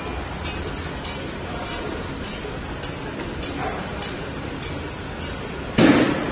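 Square cotton pad making machine running steadily, with a sharp tick repeating about every 0.6 s over its mechanical noise. Near the end, a short, loud burst of noise stands out above the machine.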